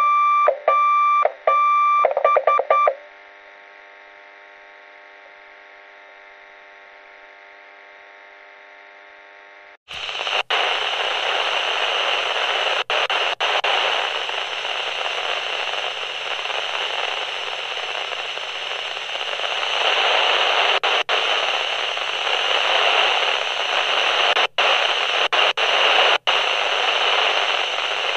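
Walkie-talkie sound effects: a few short, loud electronic beeps, then a quiet steady tone. About ten seconds in, loud radio static hiss starts and runs on, with a few brief cutouts.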